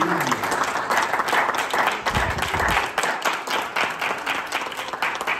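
A small crowd applauding with many hand claps, thinning out and getting quieter toward the end.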